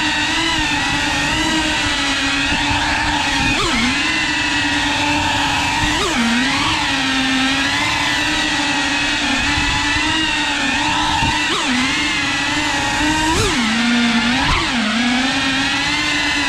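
Cinewhoop FPV drone's electric motors and ducted propellers buzzing steadily, heard through its onboard camera, with quick dips and surges in pitch every few seconds as the throttle is eased off and pushed again.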